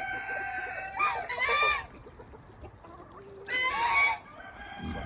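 Roosters crowing: the tail of a long held crow at the start, then two more crows, about a second in and again near three and a half seconds in.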